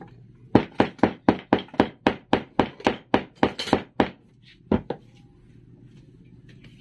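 Rubber mallet tapping a wooden dowel leg into a plywood base: about fourteen quick, even blows at roughly four a second, then after a short pause two more close together.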